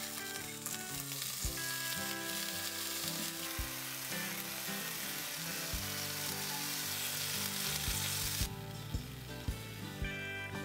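Bread and sausages frying in a nonstick pan, a steady sizzle that cuts off abruptly about eight seconds in, with a few soft knocks as sausages are set down in the pan. Background music with held notes plays underneath.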